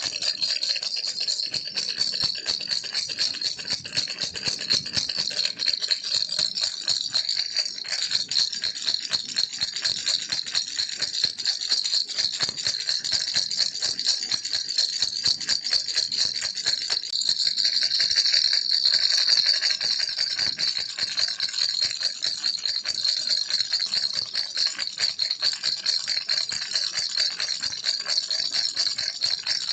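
Baby rattle shaken steadily, a dense continuous rattling without pause that swells a little about two-thirds of the way through.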